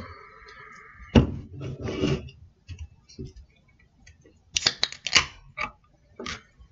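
A carbonated energy-drink can being opened: fingernail clicks and cracks from the aluminium pull tab as it is pried up, in a cluster about four and a half seconds in and again near the end. A loud knock comes about a second in.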